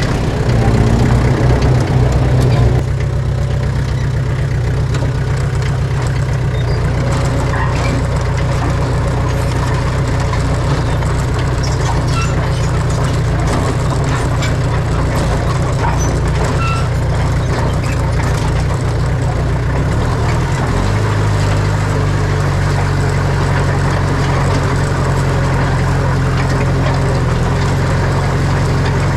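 Heavy diesel engines of earthmoving machinery running steadily, a little louder in the first few seconds, with the engine note shifting about twenty seconds in.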